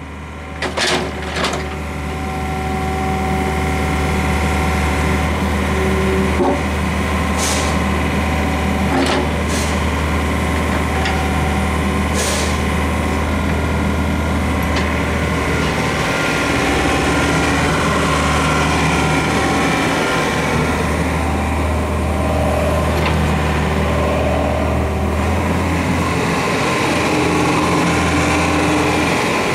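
Daewoo S55V mini excavator's diesel engine running steadily while its boom, arm and bucket are worked hydraulically, the engine note shifting a few times, with a few short clicks and knocks.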